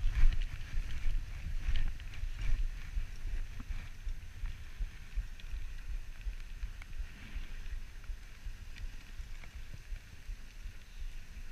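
Dog sled gliding over a packed snow trail: a steady low rumble and hiss from the runners and wind on the microphone, with light knocks and rattles from the sled, more frequent in the first few seconds.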